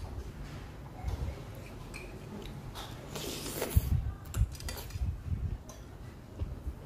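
A metal spoon and fork clinking and scraping on a plate while eating noodles, with a slurp of a noodle about three seconds in.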